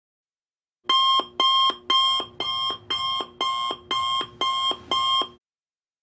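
Electronic alarm beeping, nine even beeps about two a second, that stops abruptly.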